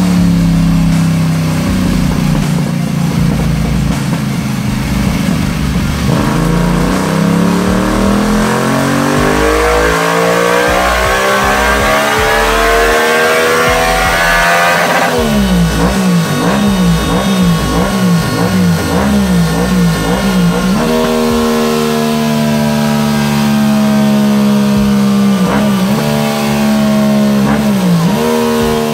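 Yamaha MT-07 motorcycle's parallel-twin engine run on a roller dynamometer. The revs climb smoothly for about eight seconds, then drop suddenly and rise and fall unevenly for several seconds. The engine then holds a steady speed, with two brief dips near the end.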